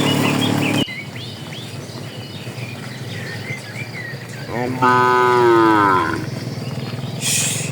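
Cattle mooing: a low moo cuts off suddenly under a second in, and a second, higher-pitched moo of about a second and a half comes about halfway through. Birds chirp during the first few seconds, and a short hiss comes near the end.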